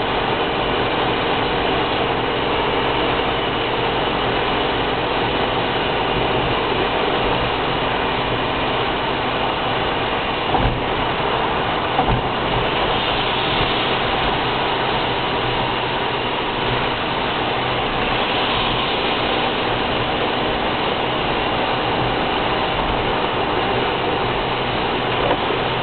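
Steady road and engine noise inside a car's cabin at motorway speed, with tyres running on a wet road. Two faint low knocks come about ten and twelve seconds in.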